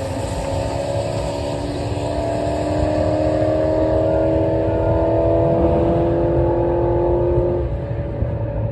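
Drag car's engine at full throttle making a pass down the strip, its pitch rising steadily, then falling away about seven and a half seconds in as the driver lifts off.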